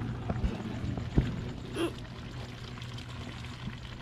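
A wok of vegetables in coconut milk simmering over a wood fire: a steady low liquid sound, with a few short clicks.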